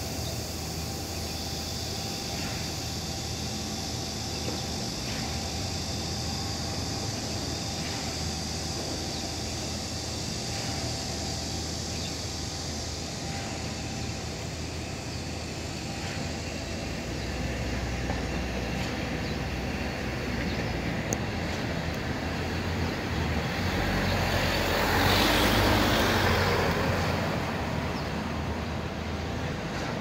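Outdoor traffic ambience: a steady low hum and hiss, with one vehicle passing louder about 25 seconds in, swelling and fading over a few seconds.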